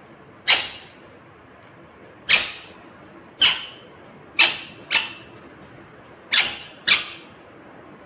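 Indian ringneck parakeet giving short, harsh squawks: seven sharp calls, some in pairs about half a second apart.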